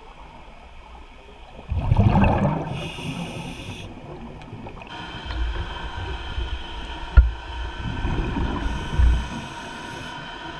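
Scuba diver breathing through a regulator underwater: twice a rumbling burst of exhaled bubbles, each followed by the hiss of an inhaled breath. There is a sharp knock about seven seconds in, and from about halfway a faint steady whine.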